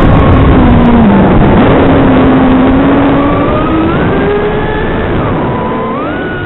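Small 95mm FPV drone's brushless motors and propellers whining under a heavy hiss. The pitch drops in the first second or two, then climbs in steps as the throttle changes.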